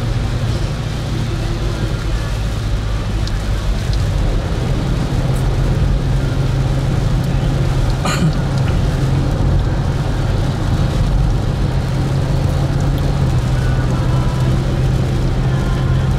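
Car driving on a wet highway in heavy rain, heard from inside the cabin: a steady engine and tyre drone with rain hissing on the car. There is one brief sharp sound about halfway through.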